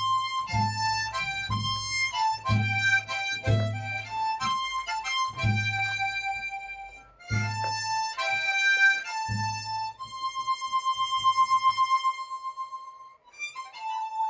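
Harmonica playing a melody over a backing track with a bass beat about once a second. Near the end the bass drops out and the harmonica holds one long note with a fast pulsing tremolo.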